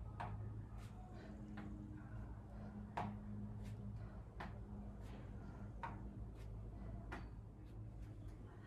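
Short, soft taps and knocks, about six of them spaced irregularly a second or so apart, as hands and feet land on a thin exercise mat during a plank exercise, over a steady low hum.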